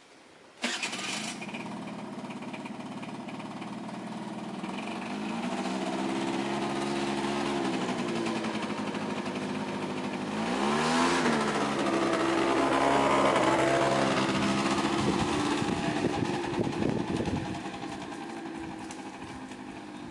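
Small motor scooter engine starting suddenly about half a second in, then running with its pitch rising and falling several times as it is revved and pulls away. It fades in the last few seconds as the scooter rides off.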